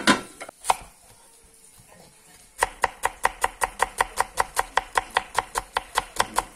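Two sharp metal clanks on the steel saj pan near the start, the second one ringing briefly. From about two and a half seconds in, a kitchen knife slices quickly through an onion onto a wooden cutting board, with even strokes about six a second.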